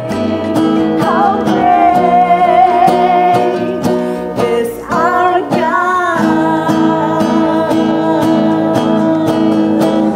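A woman singing to a strummed nylon-string acoustic guitar, her voice holding long wavering notes over steady chords.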